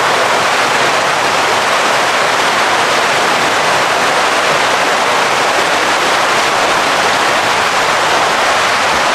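Steady, loud rush of splashing, bubbling water in a koi holding tank, where inflowing water and aeration keep the surface churned with foam.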